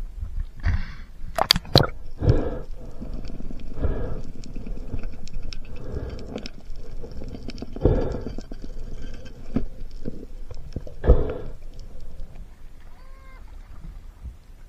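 Water sloshing and gurgling against a camera as it moves in and out of the sea around a spearfisher handling a speared fish, in swells every second or two. Two sharp clicks come about a second and a half in.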